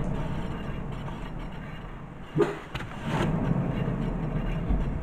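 A VW Golf Plus rear wheel spinning freely by hand, its wheel bearing giving a steady low rumble that fades as the wheel slows. About two and a half seconds in there is a knock, and the rumble grows again. This is the rougher-running side: the mechanic takes it for a worn rear-left wheel bearing.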